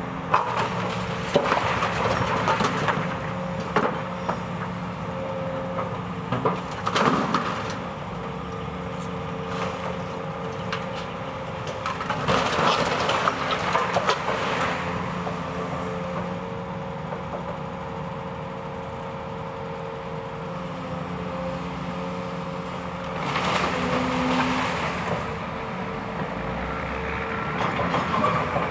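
Hydraulic excavator's diesel engine running steadily with a held hum while it tears down a brick wall, broken by several bursts of bricks and debris crashing and clattering down. The longest bursts come about halfway through and again near the end.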